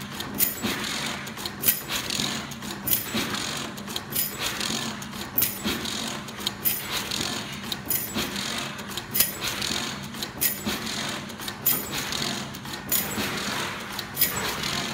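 Hexagonal wire mesh (chicken wire) weaving machine running: continuous metallic clicking and clatter as the wires are twisted, with sharper clicks every second or so over a low steady hum.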